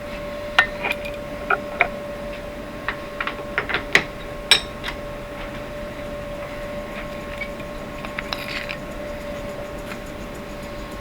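Steady machine hum in a machine shop, with a string of sharp metallic clicks and knocks in the first five seconds and a few more later: tools and a part being handled.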